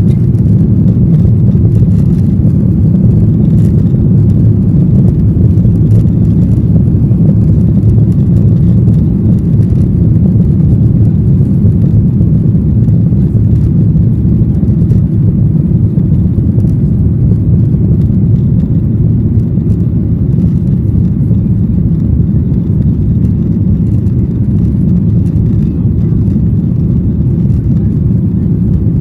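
Steady, loud low rumble of a Boeing 737-800 in flight, heard from inside the cabin: the CFM56-7B engines at climb power and the airflow over the fuselage during the climb after takeoff.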